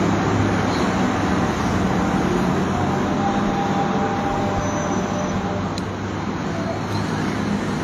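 Steady background noise with a low hum, rumbling like distant road traffic.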